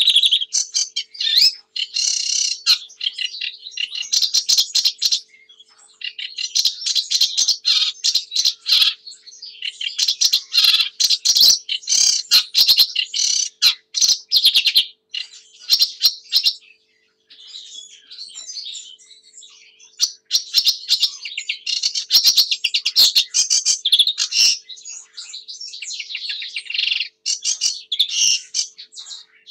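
Sedge warbler singing: long phrases of rapid, scratchy chattering notes lasting several seconds each, broken by short pauses, with one softer passage midway.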